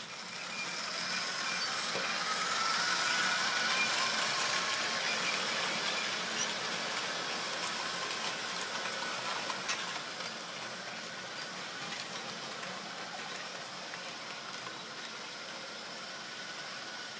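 Model railway train running on the track: a steady whirr of the motor and wheels on rail that swells as it draws near, then eases off, with a few faint clicks.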